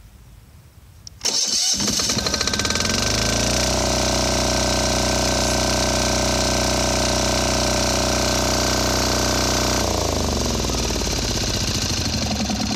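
Yanmar L48AE single-cylinder air-cooled diesel being cold-started with its 12-volt electric starter: a brief crank, then it catches and climbs to a steady run within about two seconds. About ten seconds in its pitch drops and it keeps running at a lower speed.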